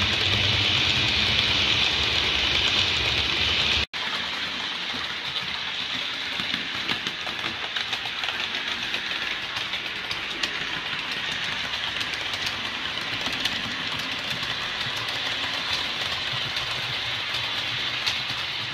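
Model railway Warship diesel locomotive and its coaches running on the track: a steady motor and wheel hum with many small rail clicks. The sound cuts off sharply about four seconds in and carries on a little quieter.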